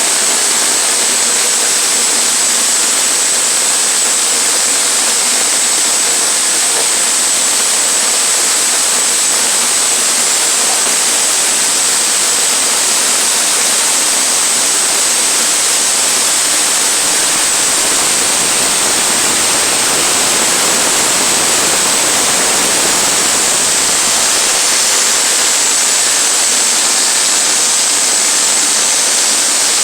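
Sawmill running and cutting a pine log into 1x4 boards: a loud, steady rushing noise with a constant high whine on top.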